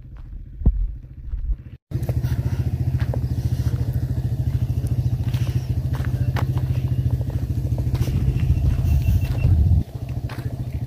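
Dirt-bike engines idling: a steady, rapid low putter that starts about two seconds in and drops in level near the end.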